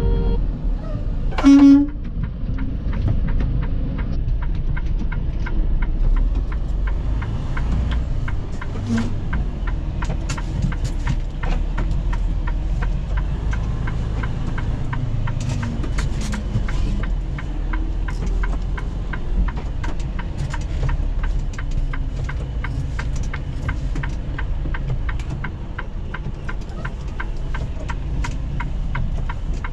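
Semi-truck diesel engine running low while the rig backs into a parking spot, with a short horn toot about a second and a half in. A steady rapid ticking runs on over the engine after that.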